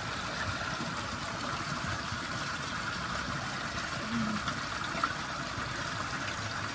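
Spring water running steadily in a small stream, an even rushing hiss.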